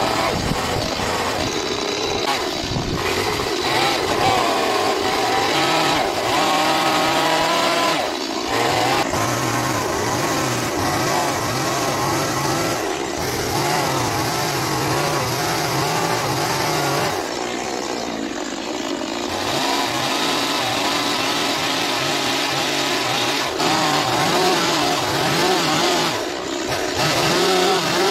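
Stihl two-stroke carving chainsaw running at high revs and cutting into wood, its engine pitch wavering up and down as the throttle and load change, with a few short dips.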